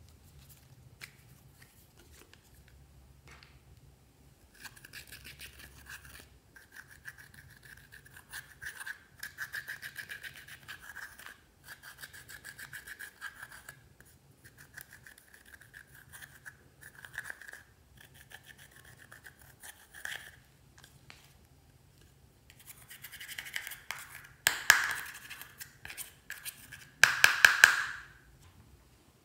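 Pressed eyeshadow powder being scraped and crushed out of its palette pans with a small plastic tool. The scratching comes in dense, rapid runs, with two louder bursts near the end.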